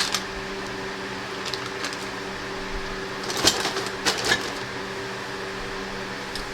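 Steady hum with a few brief clicks and rustles a little past halfway, as clamps and packaging from the turbo kit box are handled.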